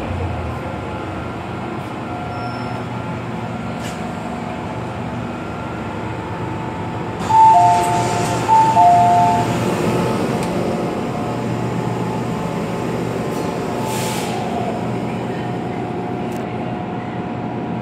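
Inside the car of an MTR M-train, steady running noise as the train enters the station and slows. About seven seconds in the noise jumps, with a few short high tones at two alternating pitches, and there is a short sudden noise near fourteen seconds, about when the doors open.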